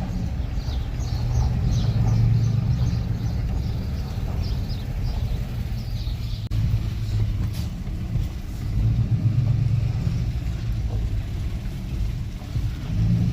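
A car driving, its engine and road noise making a low rumble that swells and eases.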